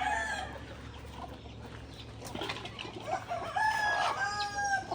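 Chickens calling: a held call trails off at the start, then after a quieter stretch a rooster gives a long, drawn-out crow that holds one pitch for nearly two seconds near the end.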